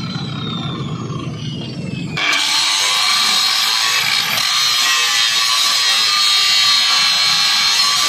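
Angle grinder grinding on the cracked steel plate of a concrete mixer's frame, grinding out the crack for repair. About two seconds in, the disc bites into the steel and the sound jumps to a loud, steady, high grinding whine.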